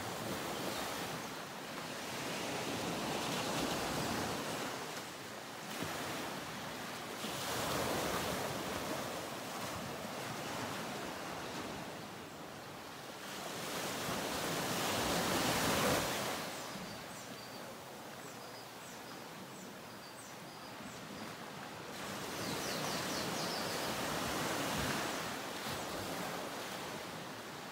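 Ocean surf washing onto a sandy beach, with the rush of the waves swelling and easing every few seconds.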